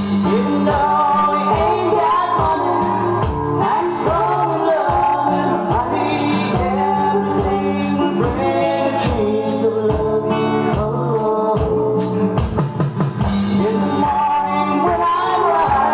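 Live band playing a song: a singer over drums and guitar, with a steady beat.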